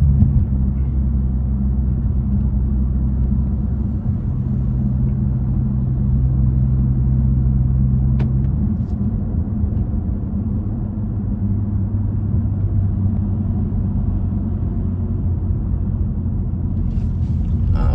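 Inside the cabin of a BMW 540i with a big single-turbo B58 inline-six, cruising: a steady low engine drone with road noise, its note shifting about 4 and 8 seconds in.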